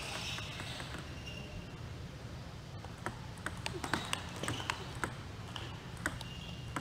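Table tennis ball clicking off rackets and the table in a rally: a quick run of sharp, irregular ticks from about three seconds in.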